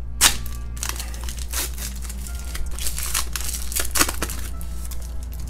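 Foil trading-card pack being torn open and its wrapper crinkled: a run of sharp crackles, loudest about a quarter second in and again around four seconds in.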